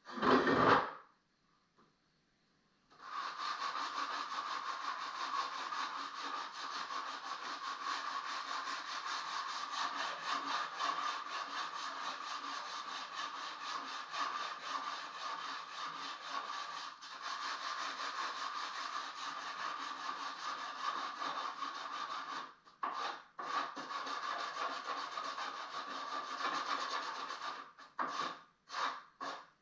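A loud knock right at the start, then about three seconds in a power sander starts and runs steadily against the old painted wood of a fireplace mantel, removing paint. It cuts out briefly a few times near the end.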